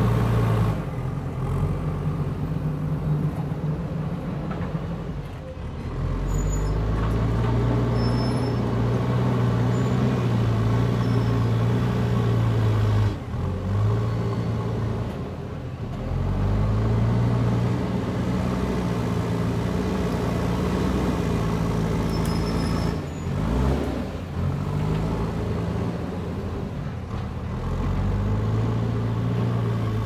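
JCB backhoe loader's diesel engine working under load as it pushes and levels dirt, the revs dropping and climbing back up several times.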